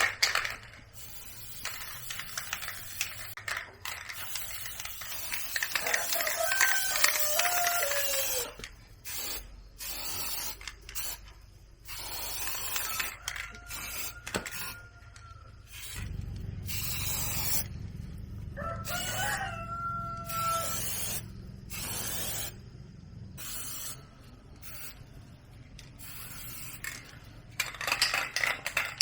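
A rooster crowing a few times, with scattered clicks and knocks and a low hum for several seconds in the middle.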